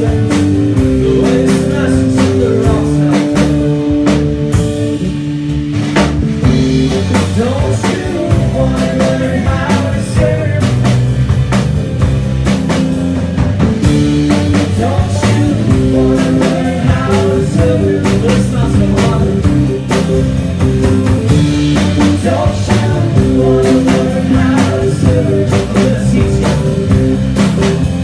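Rock band playing live: electric guitar and bass over a steady drum-kit beat, with sustained keyboard notes.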